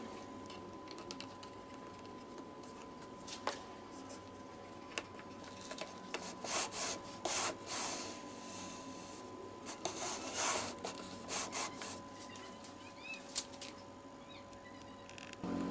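Plywood base plate of a trim-router jig sliding and rubbing along a wooden fence, in short scrapes through the middle, with a few light clicks and knocks.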